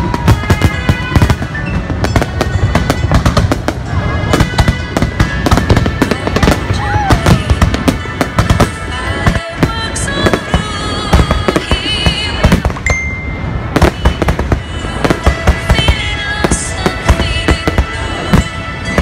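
Fireworks display going off: a dense, continuous run of bangs and crackling bursts, with wavering and gliding whistles among them.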